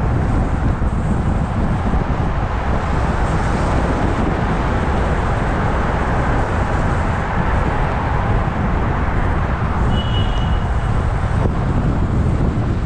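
Steady road and traffic noise from a moving car, a constant low rumble. A brief high tone sounds about ten seconds in.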